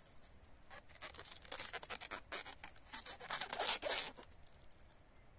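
Plastic cling film being pulled off its roll and stretched around a graft, a run of crackling, zipper-like rasps from about a second in until just after four seconds, loudest near the end.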